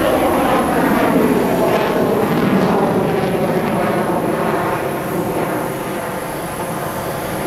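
Jet engines of a Sukhoi Flanker fighter passing overhead: a steady, loud jet roar whose pitch falls over the first few seconds as the aircraft goes by.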